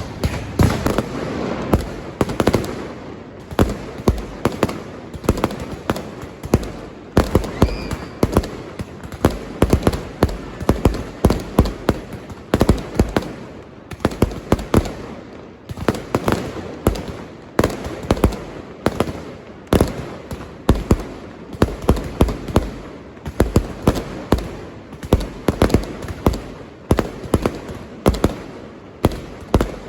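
Firecrackers and fireworks going off in a dense, irregular string of sharp bangs, several a second at times, with crackling between them.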